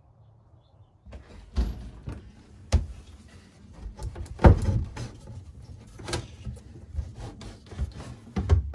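Wooden knocks and scrapes as a loose wooden shelf board inside a cabinet is handled and lifted. The loudest knock comes a little past halfway, with lighter bumps and rubbing around it.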